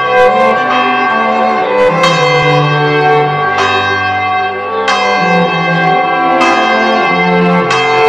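Church tower bell ringing, struck about every one and a half seconds, each stroke ringing on with a long, overtone-rich hum into the next.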